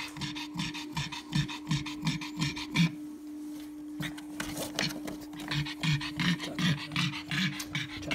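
A black pug in labour panting rapidly and evenly, about three breaths a second, stopping for about a second partway through before starting again. A steady hum runs underneath.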